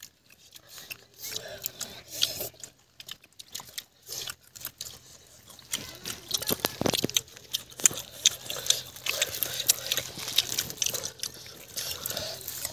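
Chewing and crunching as crisp cooked fish is eaten, with scattered clicks and crackles from fingers pulling pieces off; these get busier about halfway through.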